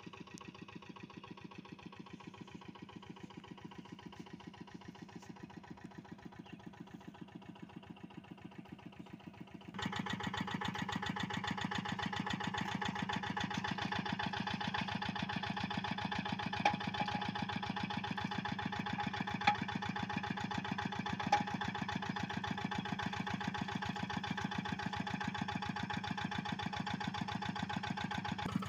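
Single-cylinder diesel engine of a Quick G1000 walking hand tractor running steadily while working in deep paddy mud, an even rapid chugging. It becomes much louder about ten seconds in, and a few sharp clicks come through near the middle.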